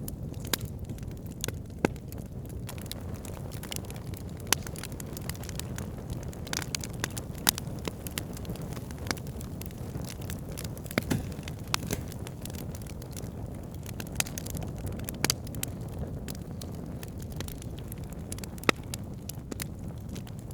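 Wood campfire burning: a steady low rumble of flames with scattered sharp crackles and pops from the burning wood.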